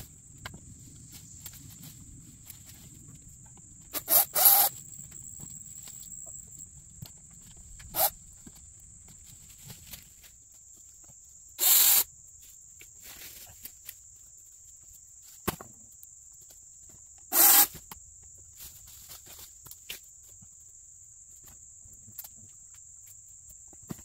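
Steady high-pitched buzz of insects, broken by about five loud, brief scrapes or crunches spaced several seconds apart.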